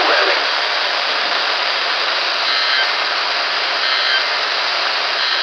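Loud, steady static hiss from a weather radio receiver on a weak, noisy signal between broadcast messages, with two faint brief tones about two and a half and four seconds in.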